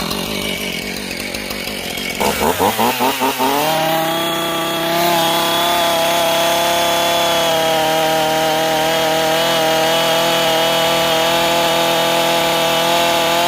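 Two-stroke gas chainsaw idling, given a quick series of throttle blips about two seconds in, then revved up to full speed and held steady while cutting down through a jon boat bench's pour-foam core.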